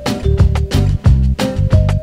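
Background music with a steady beat, heavy bass and a simple melody on top.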